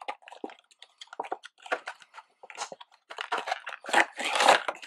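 Clear plastic retail box being handled and opened by hand: a run of crackling and clicking from the stiff plastic, loudest about four seconds in.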